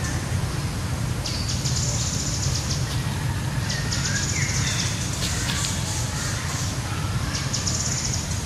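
Forest ambience: a high, buzzing trill comes in three bursts of one to two seconds, over a steady low rumble.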